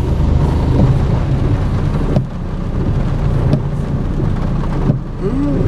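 Steady low rumble of a car driving on a wet road in rain, heard from inside the cabin, with road and rain noise and a few faint ticks.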